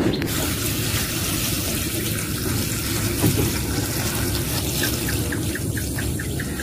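A steady stream of water from a pipe pouring and splashing into an aluminium pot of mushrooms, filling it.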